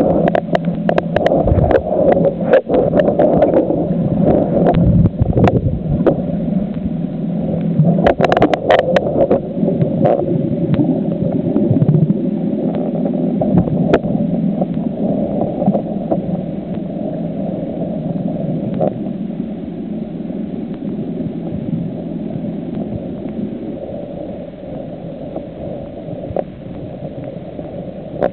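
Muffled underwater noise picked up by a camera submerged in seawater, with scattered sharp clicks and knocks that are frequent in the first ten seconds and sparse after that.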